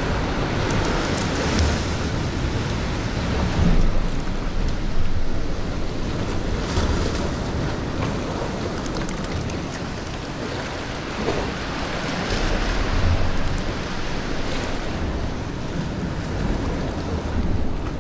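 Sea surf washing and surging against the rocks below, rising and falling, with wind buffeting the microphone in low rumbling gusts.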